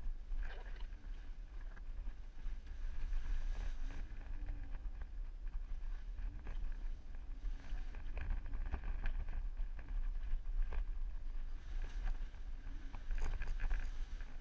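Low engine and drivetrain rumble heard from inside the cab of a 4x4 crawling along a rough dirt trail, with occasional knocks and rattles as it jolts over ruts and bumps.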